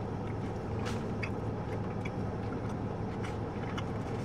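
Steady low hum of a car idling, heard inside its cabin, with a few faint clicks of a person chewing a mouthful of burrito.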